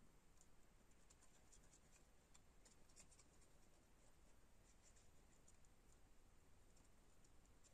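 Near silence, with faint scattered small ticks and rustles of paper cutouts being handled and pressed down as they are glued.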